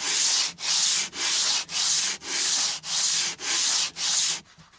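Cast-iron sole of a No. 5 hand plane being rubbed back and forth on 120-grit abrasive sheet, flattening the sole: eight even gritty strokes, about two a second, stopping just before the end.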